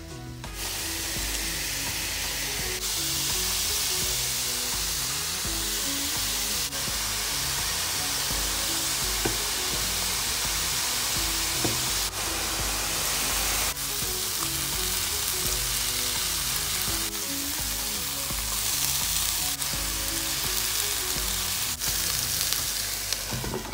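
Grated carrot, diced red bell pepper and onion sizzling in hot oil in a frying pan, stirred with a wooden spoon, a steady frying hiss with background music underneath.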